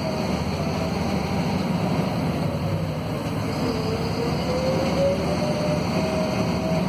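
Volvo B7RLE bus's D7C inline-six diesel engine running under way, heard from inside the passenger cabin, with road and drivetrain noise. A thin whine drops slowly over the first few seconds, then climbs again near the end as the bus picks up.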